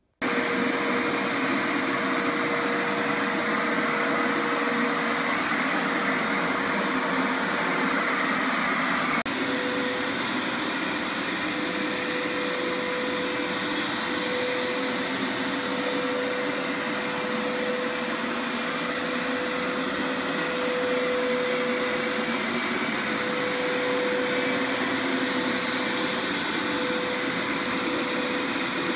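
Hoover Power Scrub Deluxe carpet washer (FH50150NC) running: its suction motor and spinning scrub brushes make a steady loud hum with a steady whine on top as it is pushed over carpet. The sound cuts in abruptly at the start.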